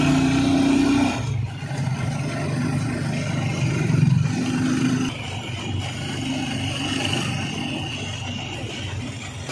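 Tricycle's motorcycle engine running while under way on the road, its note easing off about a second in and picking up again around four seconds.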